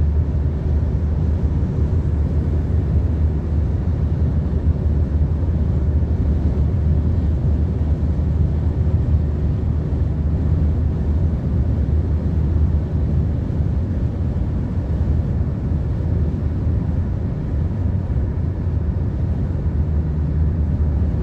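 Steady low rumble of a car's tyres and engine heard from inside the cabin while cruising on a highway.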